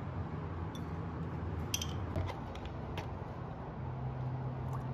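A few light clicks and taps from a plastic sauce bottle and a drink carton being handled on a tabletop, over a steady low hum.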